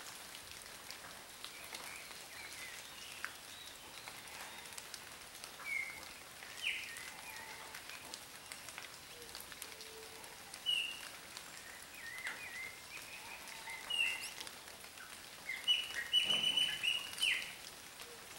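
Steady rain falling, with short bird chirps scattered throughout and a quick run of louder chirps near the end.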